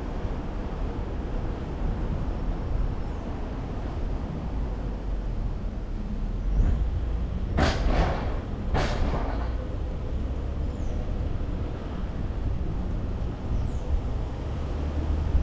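Steady low rumble of city traffic and road noise from a car driving through town streets. About eight seconds in come two short, sharp noises about a second apart.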